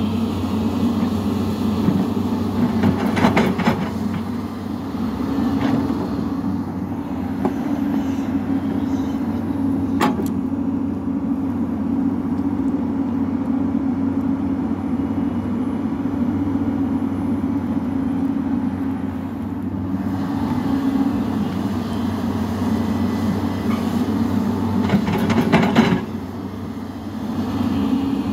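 Hyundai 215L crawler excavator's diesel engine running steadily under digging load. Louder rattling noise comes about three seconds in and again near the end, with a single sharp click about ten seconds in.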